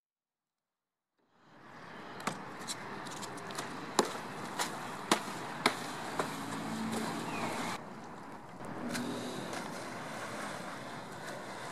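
Silence for about a second, then outdoor camera-microphone ambience fades in: a steady wash of wind and water noise with a string of sharp knocks and clicks over the next few seconds.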